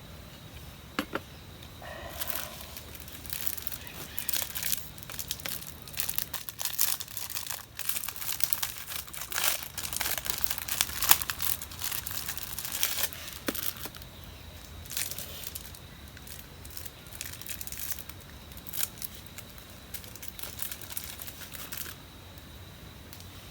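Irregular crinkling and rustling, dense from about two seconds in and thinning out near the end.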